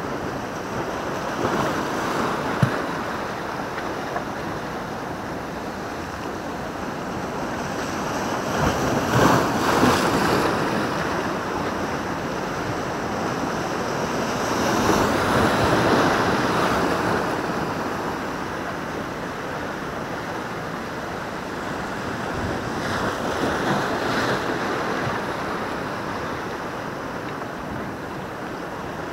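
Sea waves washing and breaking against the boulders of a rocky breakwater in heavy swell, surging louder three times, about a third of the way in, around the middle and near the end. There is a single sharp click about two and a half seconds in.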